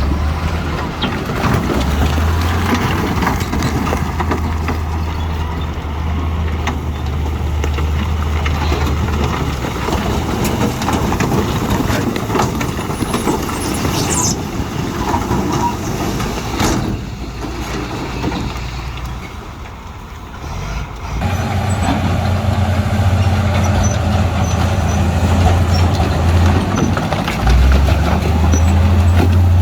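Heavy diesel earthmoving machinery, bulldozer engine running steadily at work, with a brief high squeal near the middle. The engine eases off about two-thirds through, then comes back louder.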